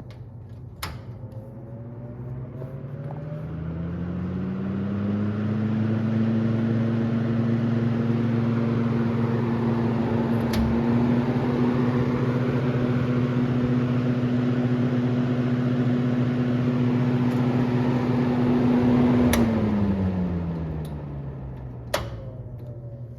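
Vintage 1970s Montgomery Ward (Hunter) seven-blade box fan switched on with a click, its motor hum and blade whoosh rising in pitch and growing louder over about five seconds as it spins up. It runs steadily, with a click and a slight rise in pitch about halfway through, then after another click near the end it winds down, the hum falling in pitch.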